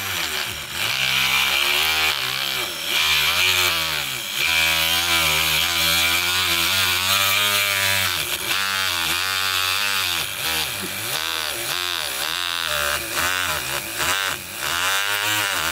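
WL-800 mains-powered micro grinder (a small rotary tool) drilling into a block of wood with a thin twist bit, its small motor whining steadily. The pitch sags and recovers again and again as the bit bogs down in the wood, close to stalling.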